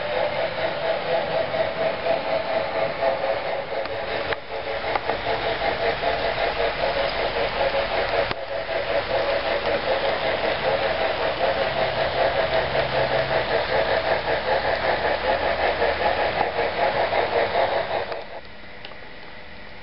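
HO scale model train running on the track, led by a Broadway Limited Imports Norfolk and Western class A 2-6-6-4 locomotive: a loud, steady rumble of wheels on rails and the model's motor with a fast pulsing, which drops away sharply about 18 seconds in as the train stops.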